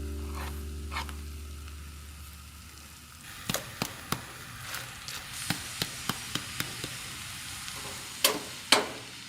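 Guitar music fading out, then a faint sizzling hiss with scattered light clicks and taps, two of them louder near the end.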